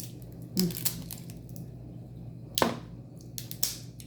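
Crab leg shells cracking as they are bitten open, a few sharp cracks, the loudest about two and a half seconds in and more a second later.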